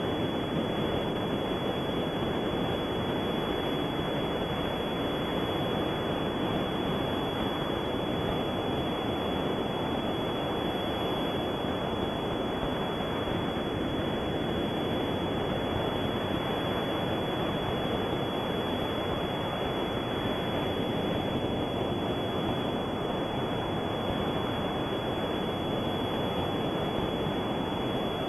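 Steady hiss with a thin high whine over it, unchanging throughout, from an old film or tape transfer rather than any sound of the scene.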